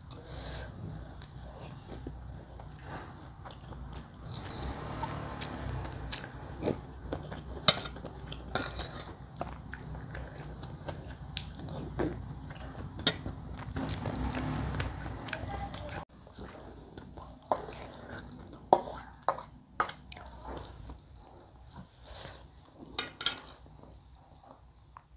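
Close-up eating sounds: a person chewing mouthfuls of rice and soup, with sharp clicks of a metal spoon against the plate scattered throughout, the clicks coming thicker after about two-thirds of the way in.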